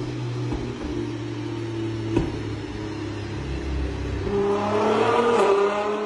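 Nissan GT-R R35's twin-turbo 3.8-litre V6 running on a dyno, holding steady revs with a single sharp exhaust pop about two seconds in. It revs up from about four seconds in and drops back near the end.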